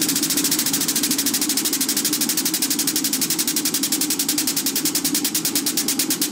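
Power hammer running as it forges a red-hot steel railroad spike, with a fast, even beat over a steady machine hum.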